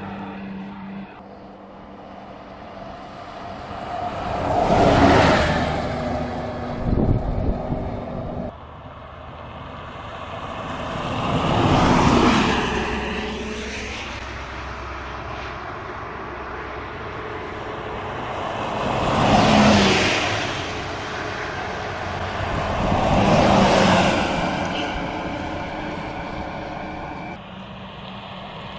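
Buses driving past on a highway one after another, each one rising in loudness as it approaches and fading away as it goes; four pass-bys, several seconds apart.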